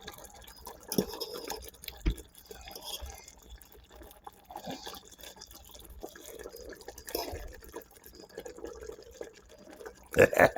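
Venison gravy simmering in a pot, bubbling and popping irregularly. A short louder noise comes near the end.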